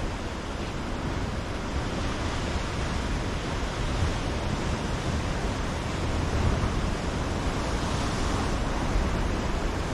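Ocean surf breaking on a rocky shore: a steady rush of waves that swells louder about six seconds in and again near the end.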